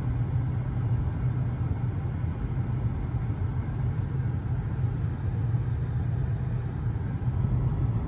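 Steady low rumble of a car engine idling, with no distinct bird calls over it.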